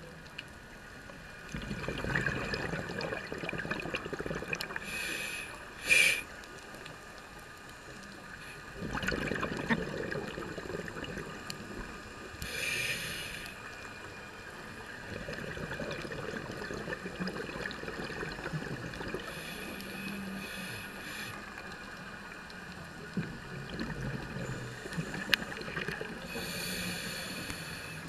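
Scuba regulator breathing heard underwater: a short hissing inhale about every seven seconds, each followed by a long rush of exhaled bubbles.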